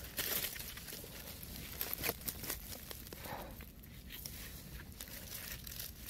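Dry leaf litter and twigs on the forest floor rustling and crackling in irregular bursts, with a louder burst at the start and a sharp snap about two seconds in.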